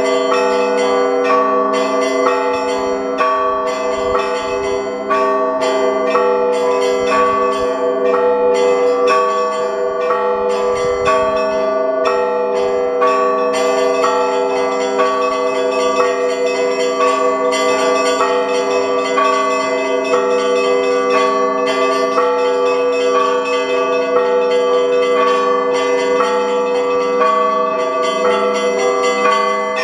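Russian Orthodox church bells of the Tikhvin Assumption Monastery ringing a continuous peal. Many bells are struck in quick succession, rapid chiming strikes over steady, sustained ringing tones.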